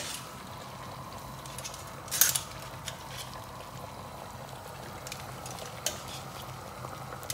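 Metal mesh strainer knocking and clinking against the pot rims as cooked linguine is lifted from its water and dropped into a pot of simmering cream sauce. There is a sharp knock about two seconds in and a smaller one near six seconds, over a steady bubbling hiss from the simmering pots.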